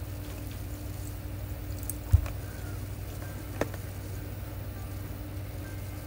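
Steady low room hum, with a dull thump about two seconds in and a lighter click about a second and a half later.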